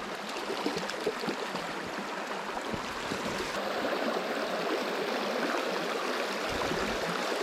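Shallow river running fast over a stony, weedy bed: a steady rush of water.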